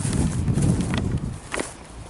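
Gusty wind buffeting the microphone, a low rumble that swells and fades unevenly, with a few sharp clicks.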